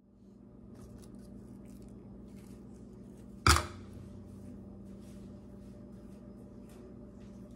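Light handling clicks and rustles over a steady low hum, with one sharp, loud snap about three and a half seconds in.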